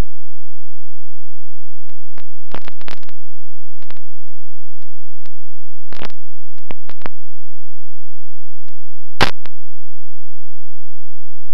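Scattered short clicks and crackles at irregular intervals over a faint steady low hum, with one louder pop about nine seconds in.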